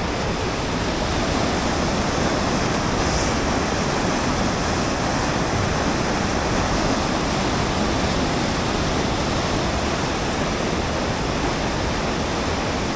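River rapids on a partly frozen river, water rushing steadily beneath and out from under the ice.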